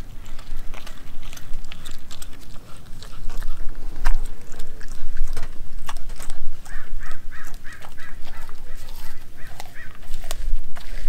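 Dog chewing and licking a piece of raw meat, with wet smacking and sharp crunches. In the second half a bird calls several times in quick succession.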